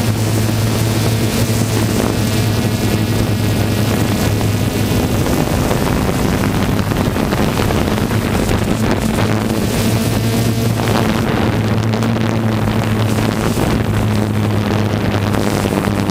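Quadcopter drone's propellers running with a steady, unchanging hum, with wind noise on the microphone; the higher hiss eases off about two-thirds of the way through.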